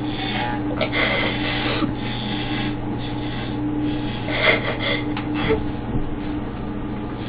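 Electric hair clippers running with a steady buzz while shaving a head. There are two louder, noisier stretches, about a second in and again near four and a half seconds.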